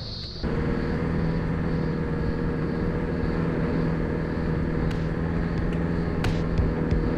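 Nissan GU Patrol's turbo-diesel engine running at steady revs as the 4WD drives along a dirt track, with a few sharp knocks from about five seconds in.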